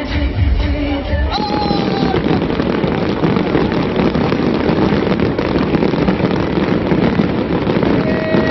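Music for the first second or so, then a fireworks display going off: a dense, continuous din of bursts and crackling that holds steady to the end.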